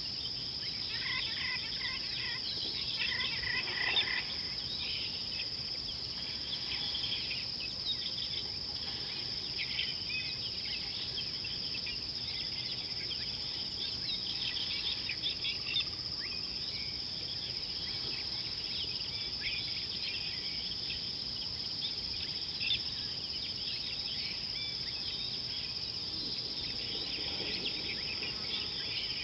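Bushland ambience: a steady, high-pitched insect drone with many small bird chirps and calls over it. One bird calls repeatedly in the first few seconds.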